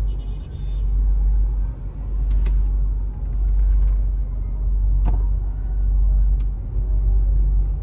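Low, wavering rumble inside a car moving slowly in traffic, with a couple of short clicks.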